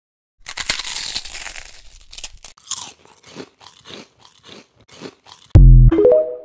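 Someone crunching and chewing food in a quick run of crunches that thins out into separate bites. Near the end comes TikTok's end-screen logo sound effect, a loud deep boom followed by a short cluster of higher tones.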